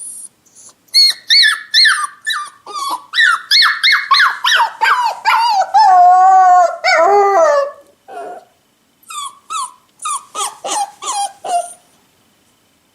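Puppy crying: a quick run of short, high whimpering cries, each falling in pitch, then a longer wavering howl about six seconds in, and after a short pause more short cries.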